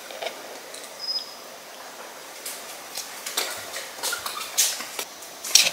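Scattered light clicks and taps, sparse at first and coming thicker in the second half, with the loudest tap near the end and a brief high squeak about a second in.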